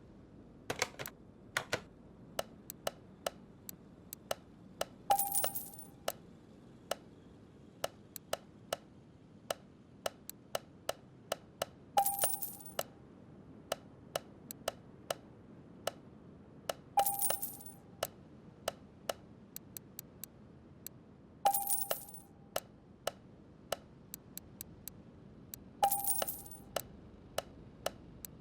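A run of sharp, irregular clicks and taps, with a louder clink that rings briefly every four to five seconds, six times in all.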